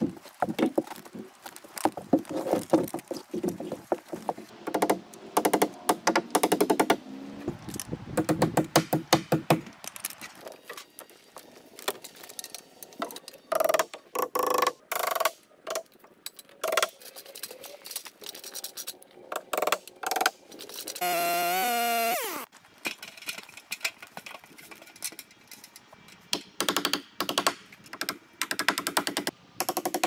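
Hammering and knocking on wooden framing: rapid runs of thuds, as boards and rafters are nailed by hand with a hammer. A brief whine that falls in pitch cuts in a little after two-thirds through.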